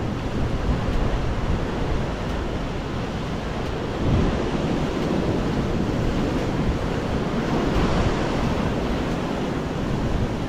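Sea surf washing against a rocky shore, a steady rush with a surge about four seconds in, and wind buffeting the microphone.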